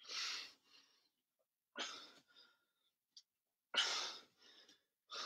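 A man breathing hard, four heavy breaths about two seconds apart: he is out of breath after a set of plank jumps.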